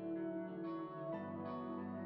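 Soft instrumental background music with plucked, guitar-like notes over held chords; the harmony changes about a second in.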